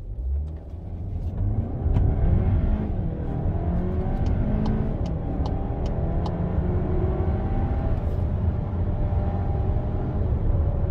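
Skoda Superb's 2.0 TSI turbocharged four-cylinder engine accelerating hard from a standstill, heard inside the cabin, its pitch rising through each gear and dropping back as the automatic gearbox shifts up.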